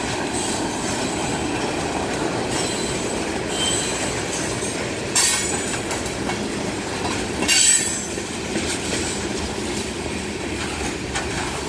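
Freight train's tank cars and covered hoppers rolling past, a steady rumble of steel wheels on rail with a faint squeal. Two sharper, louder metallic bursts come about five seconds in and again about two and a half seconds later.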